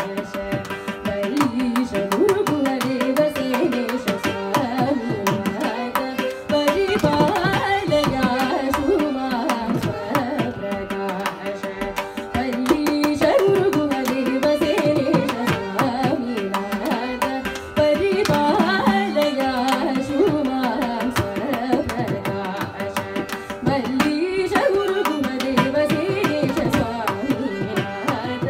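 Carnatic music in raga Nattai: a female voice and violin carry a gliding, ornamented melody over steady mridangam strokes and a continuous electronic tanpura drone.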